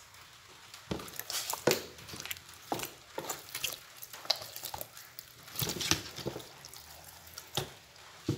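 Wet slapping and squelching of freshly cleaned carapeba being shifted about by hand in a pile. The sounds come as irregular clusters of short, sharp wet smacks, starting about a second in.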